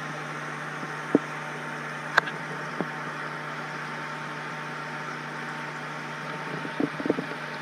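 Steady hum and water rush of reef aquarium equipment (circulation pumps and water movement), with a few soft clicks in the first three seconds.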